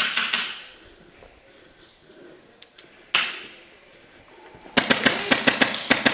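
Airsoft guns firing in rapid full-auto bursts: a burst at the start, a short one about three seconds in, and a longer string of about a second and a half near the end, echoing in the bare rooms.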